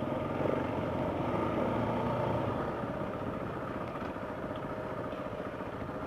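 Motorcycle engine running under throttle while riding a dirt trail, heard from on the bike. It pulls a little harder for the first couple of seconds, then eases off.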